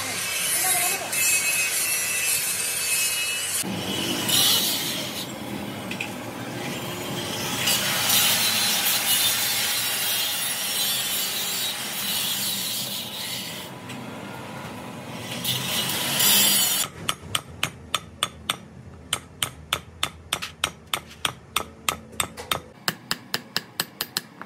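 A continuous rough scraping and rubbing noise, then, about two-thirds of the way in, a quick run of hammer taps at about four a second. The taps are a hammer driving a needle-bearing cup of a drive shaft universal joint into its yoke.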